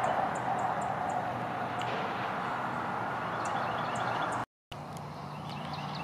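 A small songbird singing, short high chirps repeated in quick phrases, over a steady rushing background hiss. The sound cuts out completely for a moment about four and a half seconds in.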